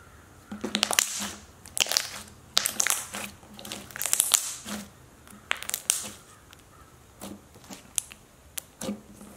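Thick slime being stretched, pressed and folded by hand, giving irregular squishy crackles and pops in clusters for the first six seconds or so, then a few sparser single pops.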